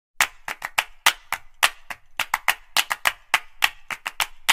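Sharp hand claps in a quick, uneven rhythm, about six a second, starting suddenly just after the cut.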